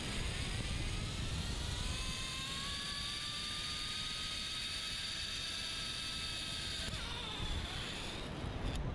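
Zipline trolley's pulley wheels running along the steel cable with a whine that slowly rises in pitch as the rider speeds up, over a low wind rumble. The whine stops about seven seconds in as the rider slows at the landing platform, and a sharp click follows near the end.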